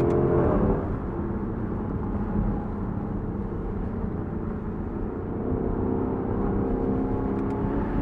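Lexus LC500's 5.0-litre V8 pulling under throttle, then easing off to a quieter cruise carried mostly by road and wind noise, and building again about five and a half seconds in, heard from the open-top cabin.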